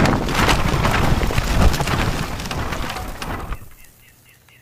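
Wooden house collapsing: timber cracking and splintering over a heavy low rumble of falling debris, which dies away about three and a half seconds in.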